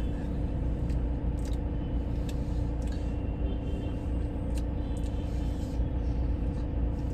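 Steady low rumble of a vehicle with a faint hum, and a few light clicks and clinks scattered through it.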